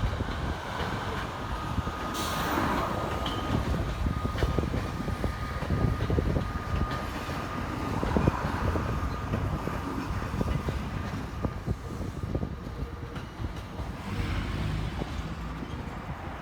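JR E217 series electric train running past, its wheels rumbling and clacking over the rail joints, with a thin steady whine through the first several seconds.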